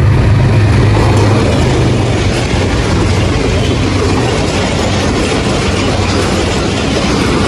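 A diesel locomotive passes close by, its low engine hum fading in the first second. Then the passenger coaches roll past, with a steady noise of wheels running on the rails.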